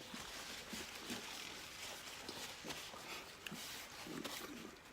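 Faint chewing and wet mouth sounds of someone eating chicken nuggets, a scatter of small soft smacks and clicks over a low hiss.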